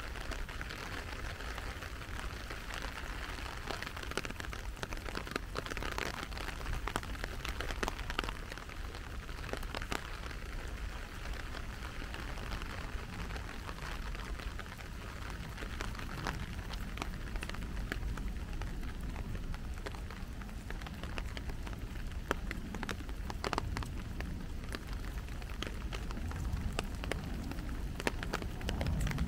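Steady rain falling: a constant hiss with many sharp, separate drop taps mixed in.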